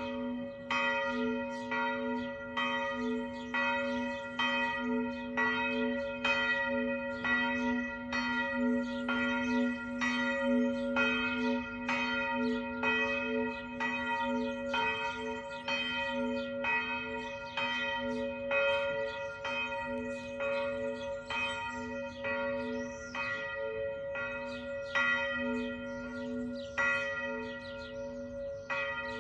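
Church bells ringing, struck over and over at about one stroke a second or a little faster, their hum carrying on steadily between the strokes.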